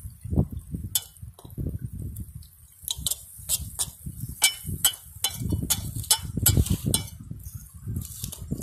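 A small metal utensil stirring melting butter in an aluminium pot, clicking against the pan about three times a second, over a low rumble.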